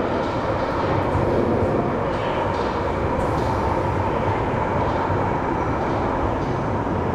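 London Underground tube train approaching and pulling into the platform: a steady rumble with a whining tone, and a faint high squeal coming in near the end.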